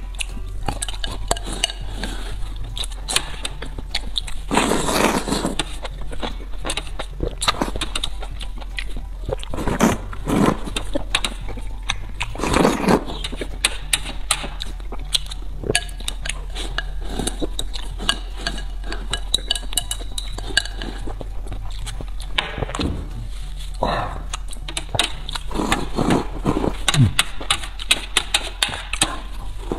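Close-up eating sounds: chewing and mouth noises, with a spoon clinking and scraping against a metal tray of broth. Many short sharp clicks, with a few louder bursts scattered through.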